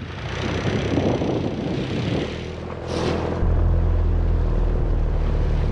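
Small outboard motor driving an inflatable dinghy, with wind and water rushing past. About three seconds in, a loud, steady low engine drone takes over.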